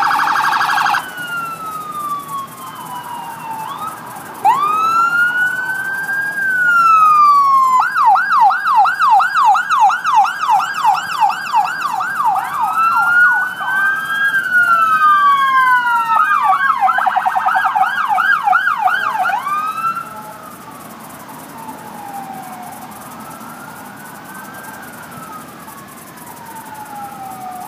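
Police car sirens passing one after another: a rapid warble cuts off about a second in, then sirens switch between a slow rising-and-falling wail and a fast yelp of about three sweeps a second, sometimes overlapping. After about twenty seconds the sirens are fainter, with slow wails continuing.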